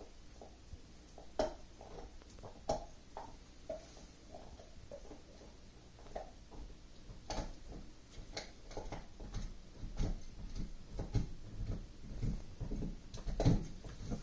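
Soft handling noise: scattered light clicks, taps and rustling, sparse at first and busier with low thuds in the second half.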